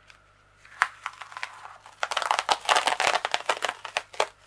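Diamond painting canvas being lifted and repositioned on adhesive foam board: scattered clicks, then a dense run of crinkling and crackling from about two seconds in.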